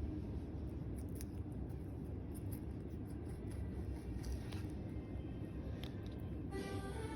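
Rabbit chewing sprouts: scattered crisp crunching clicks. Music begins near the end.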